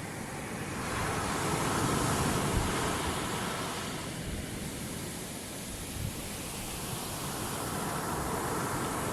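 Ocean surf washing in: a swell of rushing water that builds about a second in, peaks and fades over the next few seconds, then builds again near the end.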